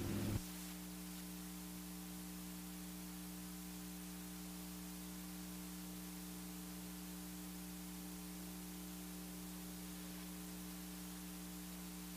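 A louder sound cuts off abruptly about half a second in, leaving a steady electrical hum with faint hiss. The pulling truck's engine is not heard.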